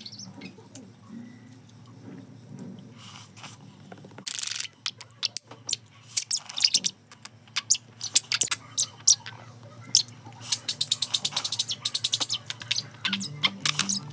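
Noodles being slurped and chewed: a run of wet slurps and mouth clicks that starts about four seconds in and grows busier, with a fast fluttering slurp near the end.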